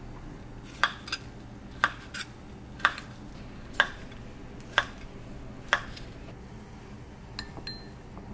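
Kitchen knife slicing a soaked shiitake mushroom on a wooden cutting board: six sharp knocks about a second apart, some followed by a lighter tap. Near the end, a couple of light clinks of chopsticks against a ceramic bowl.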